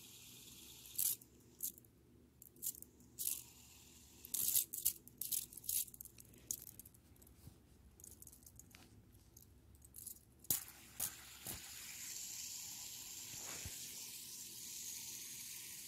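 Fidget spinner being flicked and handled: a scatter of sharp, irregular clicks and clacks. Near the end, a steady faint whir as the spinner turns on a table.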